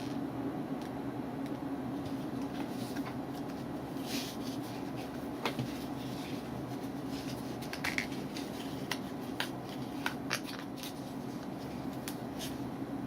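Scattered small clicks and rustles of objects being handled, over a steady low hum.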